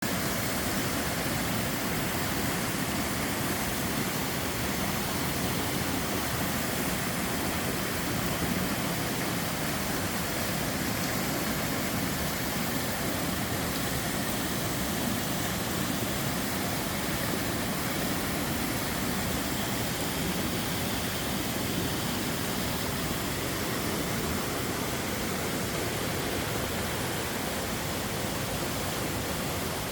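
Two-tier waterfall on a mountain stream: water falling and splashing in a steady, even rush with no breaks.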